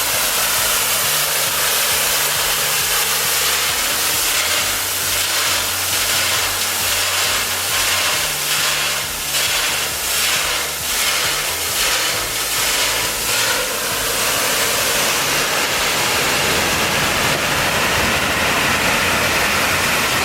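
Steady, loud rushing hiss of falling water from a waterfall, with a low steady hum underneath that shifts pitch a few times.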